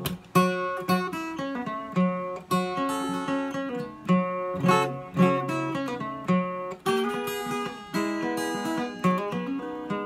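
Capoed acoustic guitar playing an instrumental break alone, a rhythmic picked pattern of treble notes over a recurring bass note.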